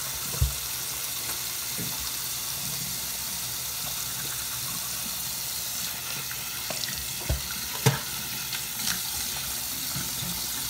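Bathroom tap running steadily into the sink, with a few short knocks about half a second in and again around seven to eight seconds.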